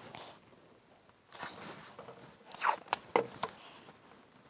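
Blue painter's tape being pulled off the roll: faint rustling of the tape being handled, then two quick rasping rips about two and a half and three seconds in, each dropping in pitch.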